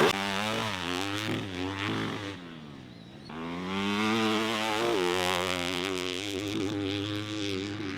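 Yamaha YZ250F four-stroke single-cylinder dirt bike engine revving. Quick throttle blips at the start fall to a low idle about two to three seconds in. The revs then climb and hold higher, with a few short blips.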